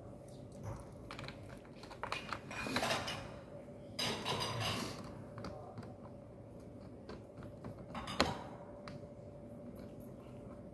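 Small clicks, scrapes and rustles of hands handling wires and a screwdriver working the terminal screws of a DIN-rail circuit breaker, with one sharp click about eight seconds in.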